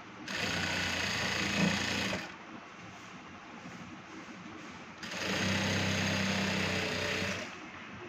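ZOJE industrial sewing machine stitching a garment seam in two runs: a burst of about two seconds, a pause while the cloth is repositioned, then a second burst of about two and a half seconds.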